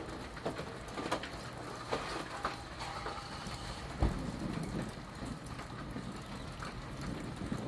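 Steady rain falling during a thunderstorm, with scattered drops ticking close by. About four seconds in there is a single sharp thump.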